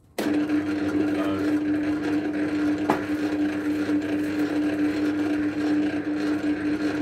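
Electric cable-stripping machine switched on: its geared motor starts abruptly and runs steadily with a constant hum. A single click about three seconds in.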